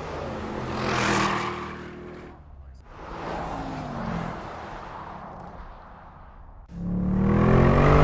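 Bentley Continental GT V8 S coupe's twin-turbo V8 engine running as the car drives along, in several shots cut together. There is a swell of engine and road noise about a second in, the engine note falls in pitch a few seconds later, and near the end the engine comes in suddenly and much louder as the car closes in.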